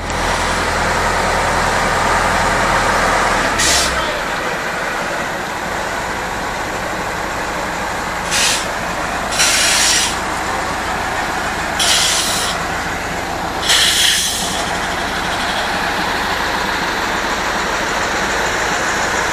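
Tatra heavy truck diesel engines running, with the note changing about four seconds in. Five short, sharp hisses of compressed air from the trucks' air brakes break in at intervals.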